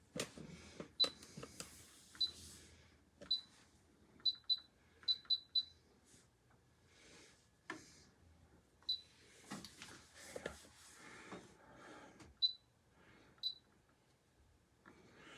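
Air fryer control panel beeping as its buttons are pressed to set it: short high beeps, singly and in quick runs of two or three, with handling clicks and rustling between.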